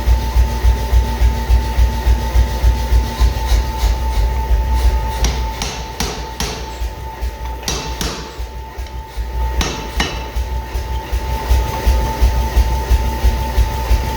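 Forge power hammer running with a steady beat of heavy blows, about four to five a second. The blows grow lighter for a few seconds in the middle, with a few sharp metallic clanks, then strengthen again.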